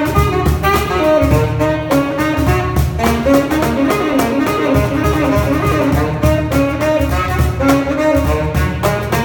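Saxophone playing a jazzy melody over a steady beat slapped on a cajón.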